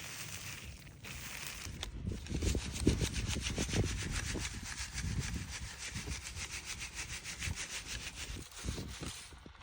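Rapid, evenly spaced scraping strokes, many per second, running from about two seconds in until shortly before the end.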